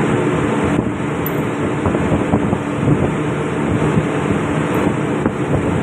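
Steady loud drone of ship's engine-room machinery: a continuous noisy hum with a low steady tone underneath, and a few faint clicks from hand work on the fuel pump.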